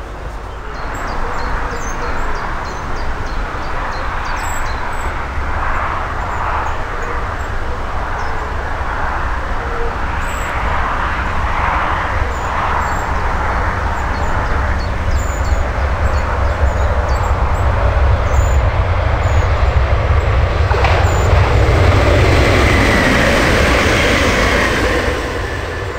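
Electric multiple-unit passenger trains running on the line: a steady rumble of wheels on rail that grows louder to a peak near the end as a train passes close, then fades.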